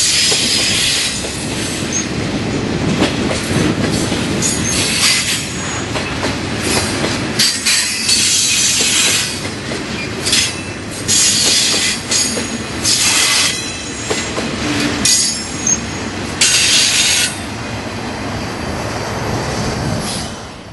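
Freight train's wood-carrying flatcars rolling past, a steady rumble of wheels on rail broken by repeated high screeches of wheel squeal. The sound is quieter in the last few seconds as the last car goes by.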